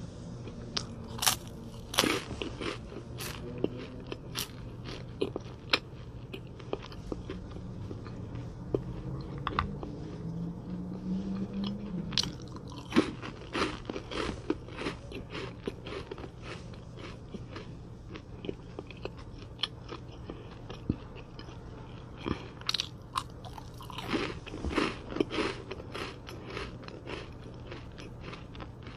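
Close-miked crunching as a person bites into and chews crisp chocolate-coated biscuit snacks. Sharp crisp cracks come in three bouts, near the start, around the middle and a few seconds before the end, with softer chewing clicks between them.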